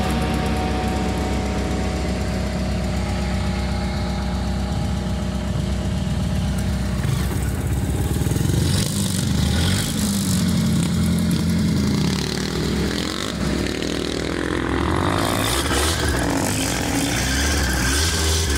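Off-road buggy's engine running as it drives along a rough dirt trail, steady and loud, easing off briefly about two-thirds of the way through.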